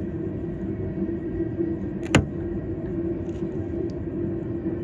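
Cars of a BNSF manifest freight train rolling past, a steady low rumble of wheels on rail. A single sharp knock sounds about two seconds in.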